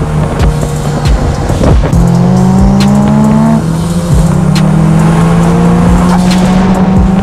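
Background music with a steady beat, mixed with a car engine pulling, its pitch rising slowly and dropping back about halfway through as if on a gear change.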